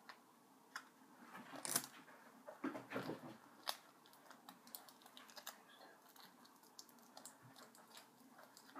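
Faint rustling and small clicks of a fabric-covered cardboard bow being handled and pinched into shape, with a sharper crinkle a little under two seconds in and a few more between two and a half and four seconds.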